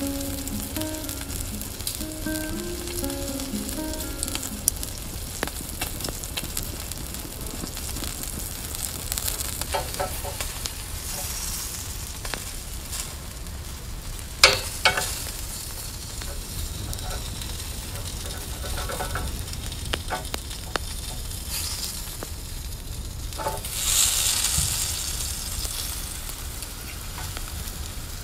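Meat and red bell pepper halves sizzling on a barbecue grill grate over a wood fire, with occasional sharp clicks of a knife against the grate; the sizzle swells briefly late on.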